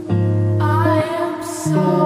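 Background music: held low notes that change about once a second, under a soft wavering melody.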